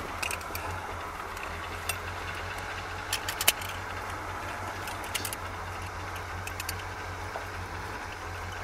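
1964 Pontiac Bonneville's V8 idling steadily, heard from inside the cabin as a low hum, with scattered light clicks and rattles.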